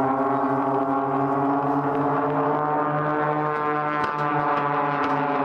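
Piston engines and propellers of a four-ship formation of aerobatic display aircraft, a steady, many-toned drone with a slight wavering in pitch as they pull through a looping curve.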